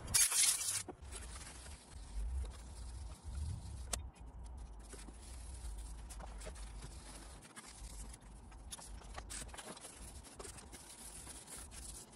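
Faint handling and rubbing sounds of an amplifier's aluminium heatsink and circuit board over a low rumble, with a short hiss at the start.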